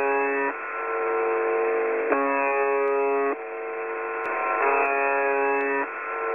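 A strange radio transmission: two steady electronic tones alternate, a lower buzzy one and a higher one, switching about every second and a half, over a bed of narrow-band radio hiss.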